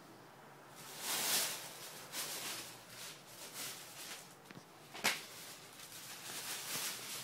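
Soft rustling and shuffling noises in irregular bursts, with one sharp click about five seconds in.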